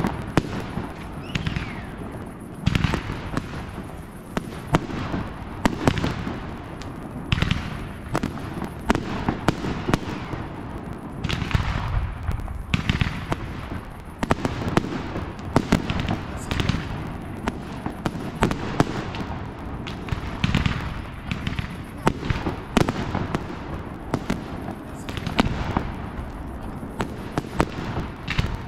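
Fireworks display: a steady run of aerial shells bursting with sharp bangs, crackling and whistling, several a second at times, over crowd chatter.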